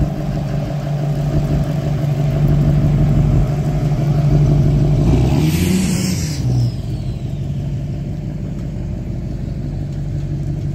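Pickup truck engine running as it pulls a boat on a tandem-axle trailer past, with the engine note rising and then falling as it goes by about six seconds in. A brief rush of noise comes with the pass, and the engine then carries on steadier and a little quieter as it moves away.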